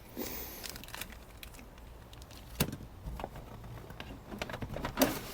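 Light handling noise: a few scattered clicks and knocks, as of items in a box of model kits and sticker sets being moved, the loudest about five seconds in, over a faint steady hiss.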